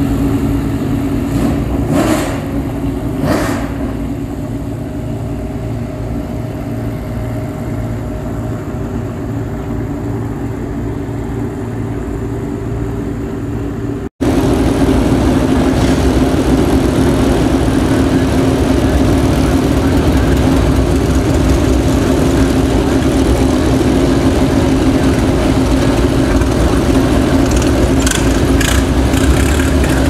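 Steady low engine running, quieter in the first half; after a cut about halfway it becomes a louder, fuller running note from an early open-wheel vintage racing car moving slowly through the paddock, with a few sharp clicks near the end.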